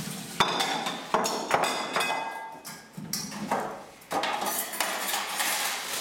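Stainless steel bowls, pans and cutlery clinking and clanking as they are handled and set down on a kitchen worktop and metal tray, several sharp knocks with a brief metallic ring between them.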